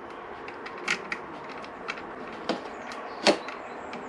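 A handful of sharp, short metallic clicks and taps from a screwdriver working a terminal screw on a motorcycle battery, the loudest about three seconds in.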